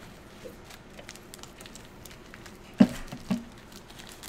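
Crunchy puffed snack being chewed: faint crackles and mouth clicks, with two short louder sounds about three seconds in.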